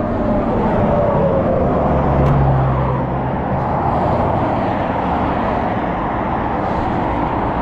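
Busy freeway traffic rushing past close by, a steady loud roar, with one passing vehicle's pitch falling over the first few seconds.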